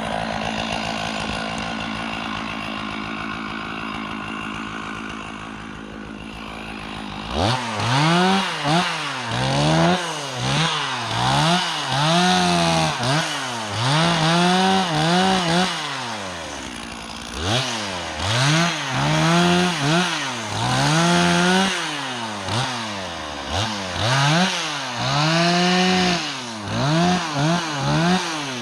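Stihl chainsaw with a 36-inch bar running at a steady lower speed, then from about seven seconds in revved up and down again and again, its pitch rising and falling about once a second.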